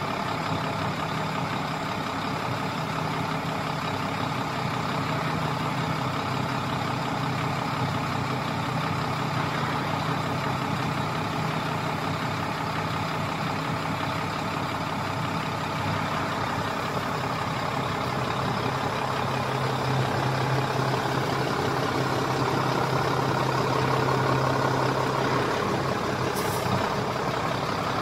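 Heavy diesel truck engine idling steadily, with a brief high hiss near the end.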